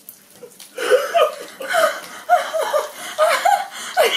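Several women laughing hard together, high-pitched and in bursts. The laughter breaks out about a second in after a brief lull.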